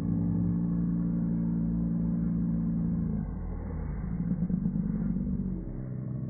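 Slowed-down, deep-pitched audio of dogs at play in slow motion: a low, drawn-out tone for about three seconds, then a rough rumbling stretch, then another low drone near the end.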